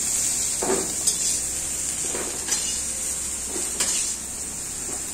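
Vegetables frying in butter in a steel kadai, with a steady sizzle. A metal spatula scrapes and clinks against the pan several times as the vegetables are scooped out.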